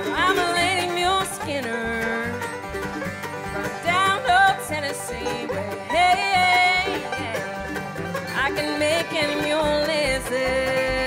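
Live bluegrass band playing: banjo, mandolin, acoustic guitars, fiddle and upright bass. A lead melody slides between notes over a steady bass beat.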